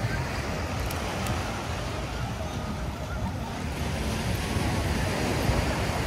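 Steady rush of surf on the beach, mixed with wind noise.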